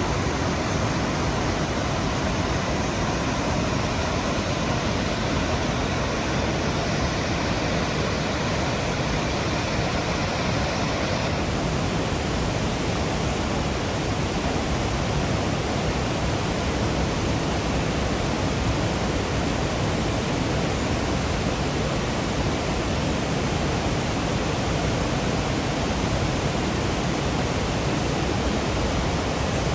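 Waterfall: a steady, dense rush of falling water that fills everything from deep rumble to high hiss, its top end thinning slightly about eleven seconds in.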